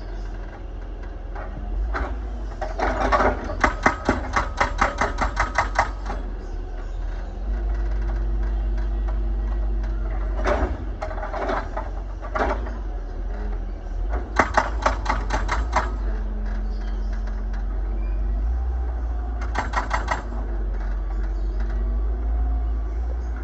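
Excavator engine running steadily, broken three times by bursts of rapid, evenly spaced metallic clatter, with a few single knocks between them.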